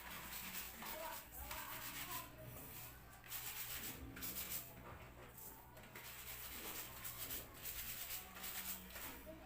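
Laundry being scrubbed by hand: repeated rubbing and scraping strokes on wet fabric, with a faint steady low hum underneath.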